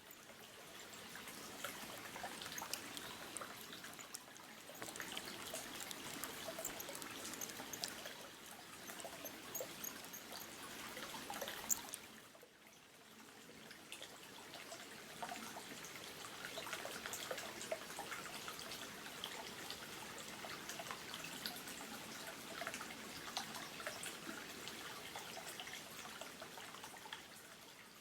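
Homemade noisy-type topwater lure being retrieved across the water surface, a continuous run of small splashes and gurgles. It breaks off briefly about twelve seconds in, then starts again.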